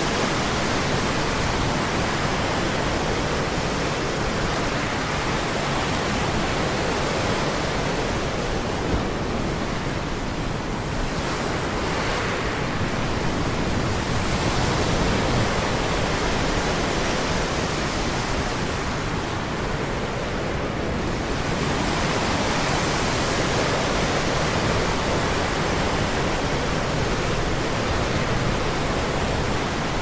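Sea surf washing on a shore with a moderate wind: a steady, even rush of noise that swells and eases only slightly.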